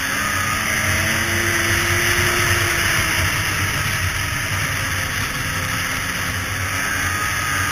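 Two-stroke Polaris snowmobile engine running at a steady trail cruise, mixed with track and wind noise. The engine note rises and falls gently in the first few seconds.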